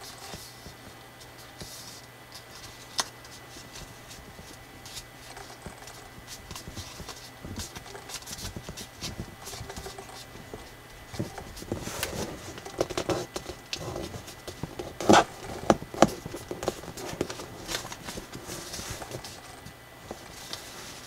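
Slightly thick colored drawing paper being folded and creased by hand: soft rustling and crackling as folds are pressed, getting busier in the second half, with two sharp crackles about fifteen seconds in.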